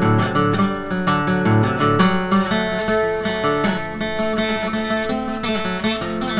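Slide guitar music: strummed chords, with notes gliding in pitch in the later seconds.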